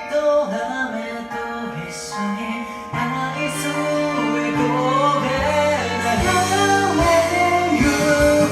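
Music: a song with a melodic line over accompaniment, with a bass line coming in about three seconds in.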